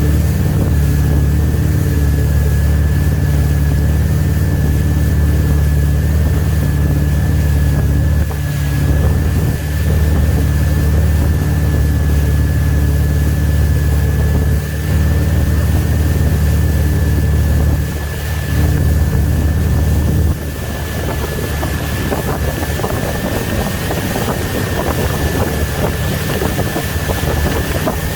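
A wake boat's engine runs steadily with a low hum and a thin, steady high whine, while wind and water rush past. About two-thirds of the way through the low hum drops off and the rushing noise takes over.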